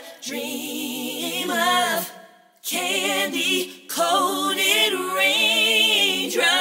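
A woman singing a cappella, with no instruments, in long held R&B-style notes with vibrato. There are three phrases, with a pause about two seconds in and a brief break just under four seconds in.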